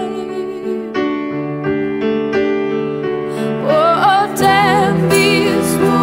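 Background music: a slow song with held keyboard chords, and a voice singing a wavering line from about three and a half seconds in.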